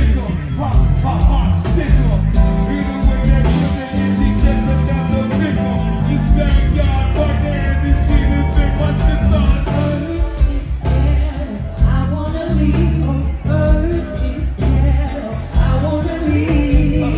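Live go-go band playing: a vocalist singing into the microphone over electric bass, drums and keyboards, loud and continuous.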